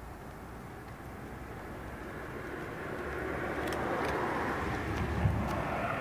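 A car passing on the road, its noise swelling to a peak about four seconds in and then fading. A single sharp knock comes about five seconds in.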